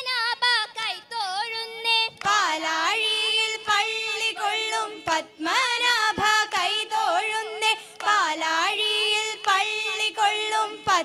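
A group of women's voices sings a Malayalam vanchippattu, a Kerala boat song, in the Aranmula style. The phrases are held and ornamented with sliding pitch turns, with short breaths between lines.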